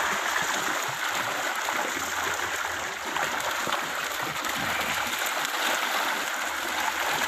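Dense, continuous splashing of milkfish thrashing and leaping at the surface as they are crowded together inside a closing seine net during a pond harvest.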